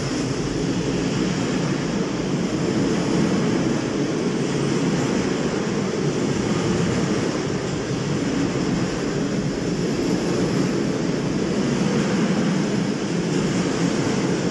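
Freight train of covered hopper wagons rolling past, a steady, unbroken noise of steel wheels running on the rails.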